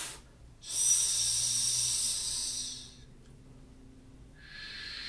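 A man voicing drawn-out unvoiced consonants as a choral diction warm-up: a sustained hissing "sss" for about two seconds, then after a pause a lower, broader "shh" that begins near the end.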